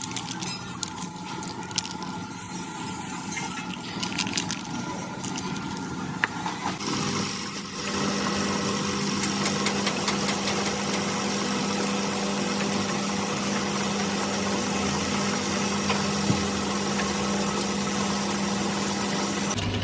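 A workshop machine running steadily, with some clicking. About eight seconds in it grows louder into an even hum with a steady high whine, which holds to the end.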